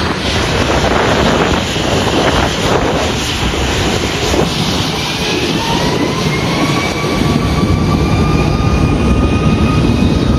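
Jet airliner's engines running loud, with a whine that rises about halfway through and then holds steady as the engines spool up to takeoff power.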